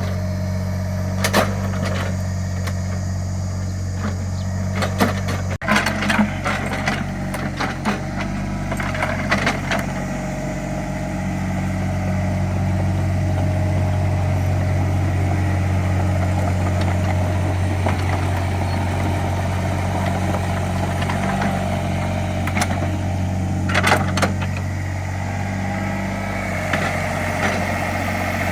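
Small Caterpillar excavator's diesel engine running steadily, louder for a stretch in the middle, with scattered knocks and clanks from the digging.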